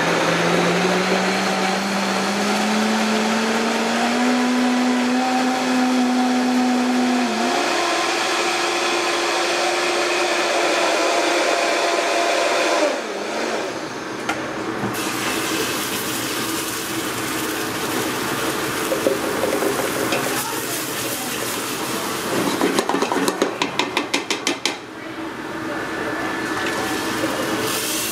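Countertop blender motor puréeing chopped peppers and liquid, its whine rising steadily in pitch over the first seven seconds, jumping higher, then stopping about thirteen seconds in. After it stops there is handling noise and, near the end, a quick run of knocks.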